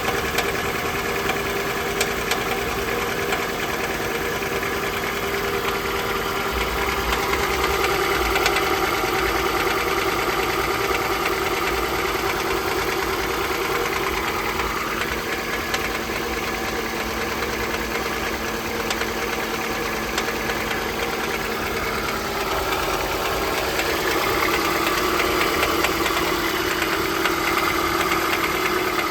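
Toyota 2AZ-FE 2.4-litre inline-four engine running with a knock, growing somewhat louder about eight seconds in and again near the end. The knock comes with engine shaking that the owner cannot trace, though the coils and spark plugs are new and the valve clearances have been set.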